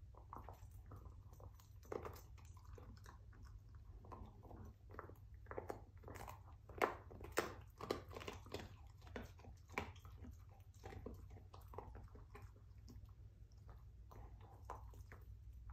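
A dog crunching and chewing a rawhide bone: irregular crunches, densest and loudest in the middle.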